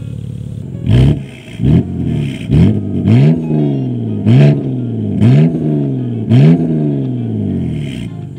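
BMW E90 325i's naturally aspirated N52 straight-six, heard at its quad-tip exhaust, idles steadily, then about a second in is blipped about seven times in quick succession. Each blip rises sharply in pitch and falls back toward idle.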